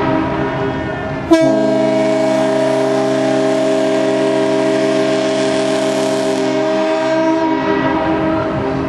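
Several air-powered ship horns mounted on a vehicle, sounding together in a loud, steady chord of deep notes with a hiss of rushing air. About a second in, another blast cuts in sharply, the loudest moment. Near the end the higher part fades while the lower notes keep sounding.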